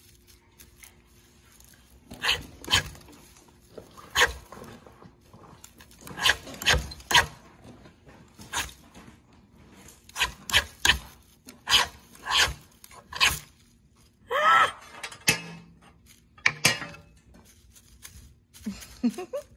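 A knife blade scraping and picking through dry, shredded fibrous tinder on a wooden board, in a series of short, irregular scrapes.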